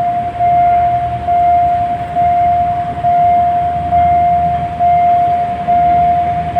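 Railway level-crossing warning signal sounding a loud, steady electronic tone that pulses about once a second, warning of an approaching train while the crossing barriers come down.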